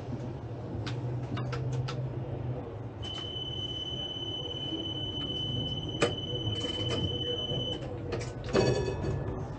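Tatra T3 tram running, with a steady low rumble from the motors and wheels on the rails and a few sharp clicks. From about three seconds in, a high steady squeal holds for nearly five seconds, typical of wheels on a curve. A brief ringing tone comes near the end.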